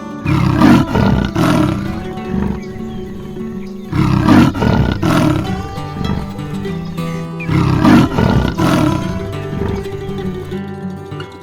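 A tiger roaring three times, each roar about a second and a half long and falling in pitch, over steady background music.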